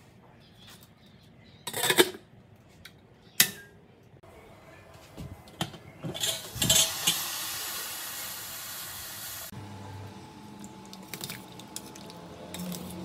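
Stainless-steel inner pot and lid clanking against a Tatung electric cooker: two sharp metal clanks a second and a half apart, then a clatter as the lid goes on about six seconds in, followed by a steady hiss for about three seconds.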